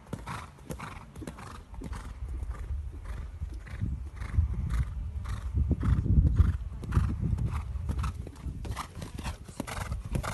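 Horse cantering on a sand arena, its hoofbeats and strides falling in a steady rhythm. A deep rumble swells in the middle, loudest about six seconds in.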